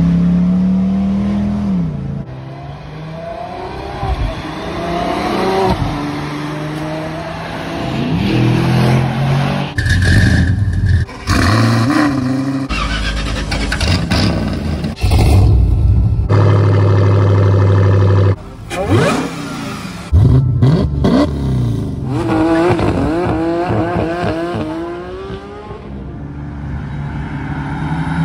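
Engines of several performance cars in quick succession, with abrupt cuts between them: revs rising and dropping again and again as a car accelerates through the gears, a stretch of steady high revs, and a muscle car coming along the road near the end.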